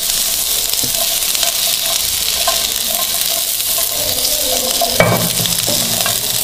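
Capsicum, onion and tomato chunks sizzling in a little oil in a nonstick frying pan as they are stir-fried with a silicone spatula: a steady frying hiss with soft scraping, and one louder knock about five seconds in.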